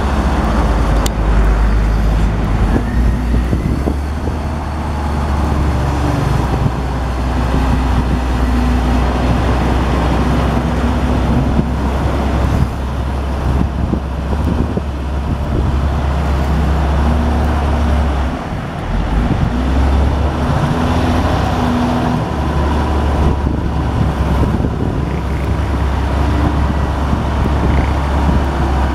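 Komatsu WA350 wheel loader's diesel engine running as the loader drives back and forth working dirt: a deep, steady rumble that drops briefly about two-thirds of the way through.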